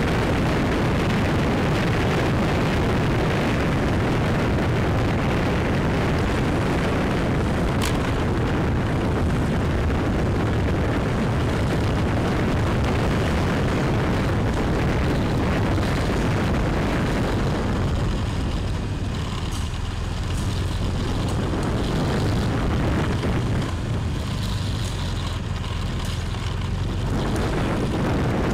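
Heavy wind rumble buffeting the microphone of a moving motorbike, with the bike's running noise underneath. It is steady and eases slightly twice in the second half.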